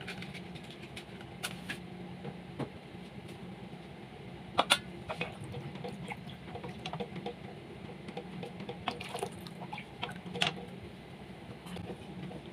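A wooden spoon stirs thick béchamel sauce in a metal pot, scraping the pan and knocking against it now and then, over a steady low hum.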